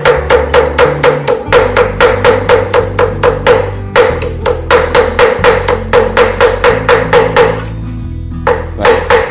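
Cleaver mincing lemongrass on a thick round chopping board: quick, even chops about four or five a second, each a sharp knock, with a short pause about eight seconds in.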